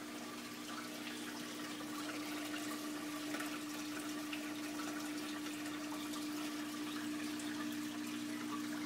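Saltwater aquarium running: steady trickling and splashing of circulating water with a constant low hum underneath.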